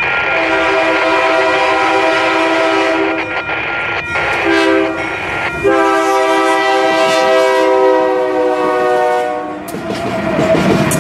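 Diesel freight locomotive's air horn sounding several notes at once: a long blast, a short one, then another long blast. As the horn stops near the end, the locomotive's engine and wheels rumble past close by.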